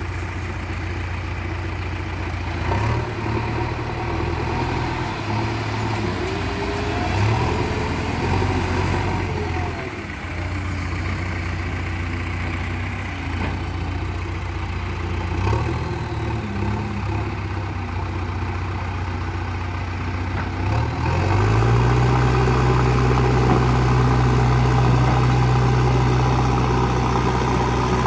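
Diesel engines of a loaded Ashok Leyland tipper lorry stuck in mud and a JCB 3DX backhoe loader running, the revs rising and falling unevenly early on. About three-quarters of the way in, one engine revs up and holds steady at higher revs, louder, under load as the backhoe pushes the stuck lorry.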